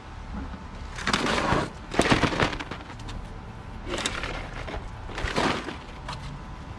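Filter grids from a commercial pool filter's grid pack being handled: several bursts of scraping and clatter as the grids are worked off the centre pipe and stacked.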